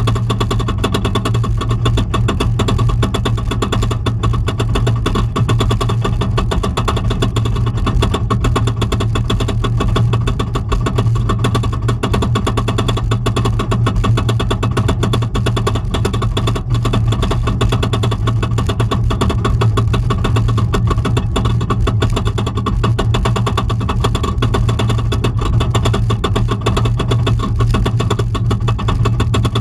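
Twisted Colossus roller coaster train climbing its lift hill: a steady mechanical drone from the lift with a continuous rapid clatter from the chain and anti-rollback.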